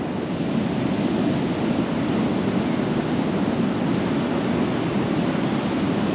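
Steady rushing of storm surf and wind, with wind buffeting the microphone.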